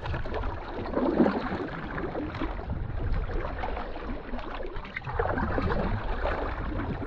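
Kayak paddling on open lake water: the paddle swishing and splashing, with water lapping at the hull. It swells about a second in and again around five seconds in, over a steady low rumble.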